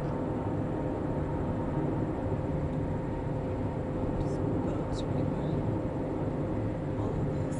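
Steady road and engine noise heard inside a car moving at highway speed: an even low rumble with a faint constant hum. There are a couple of faint clicks about four to five seconds in.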